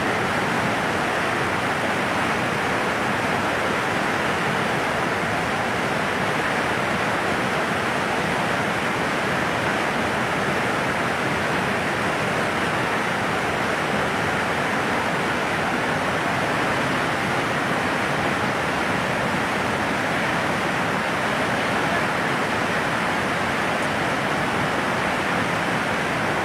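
The Beas River in flood, its fast, muddy current rushing past in a steady, unbroken wash of water noise.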